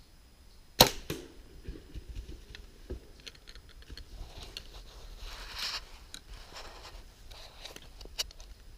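A single sharp, loud crack of a bow shot as an arrow is loosed, about a second in, followed by small clicks and scattered rustling and scuffling.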